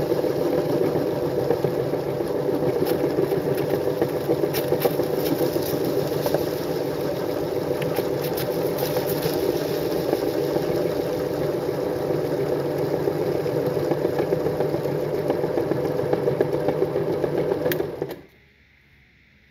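Motor-driven meat grinder running steadily while grinding crunchy cookies, with crackling clicks from the cookie pieces breaking in the auger. The motor cuts off suddenly near the end.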